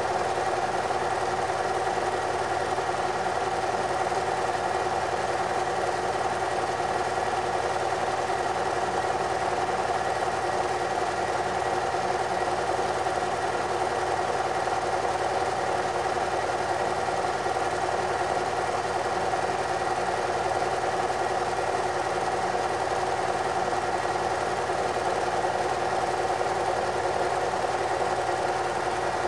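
Steady, unchanging mechanical whirr and clatter of a film projector running, with a steady hum over it.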